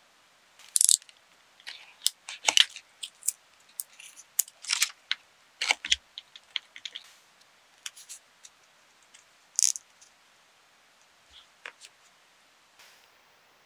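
Handling sounds of craft tools and a wooden popsicle stick being trimmed shorter on a cutting mat: irregular small clicks and taps, with a few short scrapes, one about a second in and one near ten seconds.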